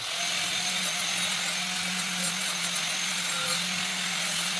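A power tool running steadily at a constant speed: an even, hissing grind over a steady low hum.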